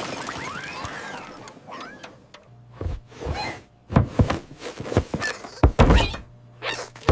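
Cartoon slapstick sound effects: the tail of a crash dies away, then a quick run of thumps and knocks.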